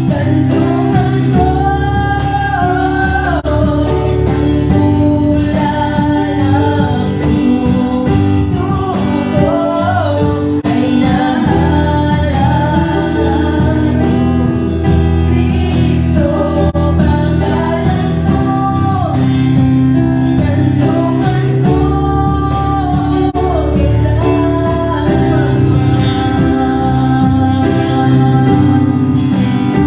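Worship song: singing over steady instrumental accompaniment with guitar.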